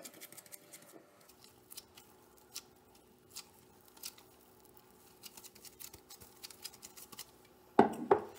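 Gloved hand kneading and pressing soft bread dough in a glass bowl: faint, scattered soft squelches and glove rustles. A loud thump comes near the end.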